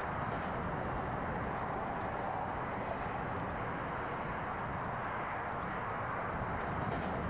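A 620/720 diesel railmotor set running along the line, giving a steady, even sound of engine and wheels on rail.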